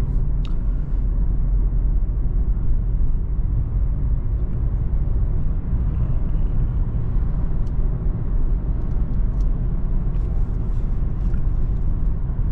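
Steady low rumble heard inside the cabin of a 2020 BMW 330i cruising at an even, gentle speed: tyre and road noise mixed with the turbocharged 2.0-litre four-cylinder at light load, with no revving.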